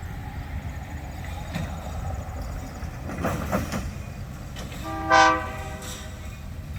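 Diesel locomotive horn sounding one short blast about five seconds in, over a steady low rumble from the train.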